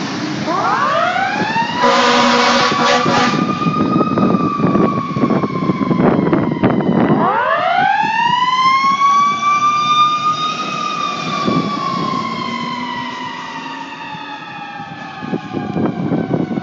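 Fire engine siren wailing: it winds up to a high pitch and slowly coasts down, then winds up again about seven seconds in and slowly falls away. A short horn blast sounds about two seconds in.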